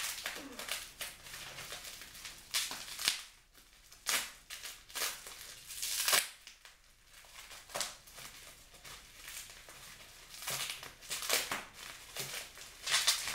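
Plastic bubble wrap crinkling and rustling on and off as it is pulled and unwound from a bottle by hand.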